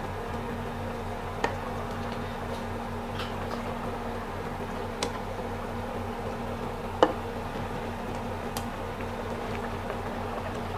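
A metal ladle taps lightly against a cooking pot as cooked fish is scooped out of simmering broth. There are four short clinks, the loudest about seven seconds in, over a steady hum.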